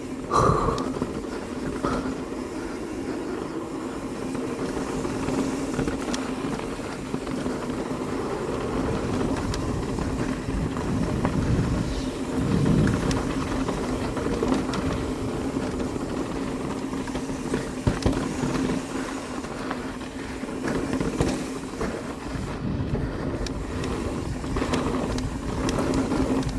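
Mountain bike ridden downhill on a dirt jump trail: a steady rumble of tyres on dirt with a constant hum, broken by many short knocks and rattles from bumps, landings and the bike's chain and frame.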